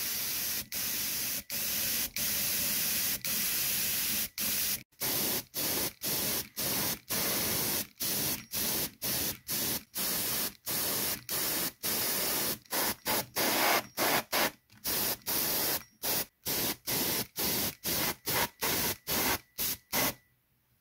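Harder & Steenbeck Infinity CR Plus airbrush with a 0.3 mm nozzle spraying acrylic paint, a steady hiss of air and paint. It runs unbroken for the first few seconds, then comes in many short bursts, quicker near the end. The airbrush is laying a very thin veil of base colour over the shaded areas.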